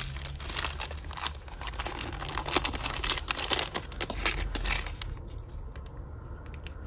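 Small plastic bags crinkling as they are handled and opened, dense for about five seconds, then lighter rustles and small clicks.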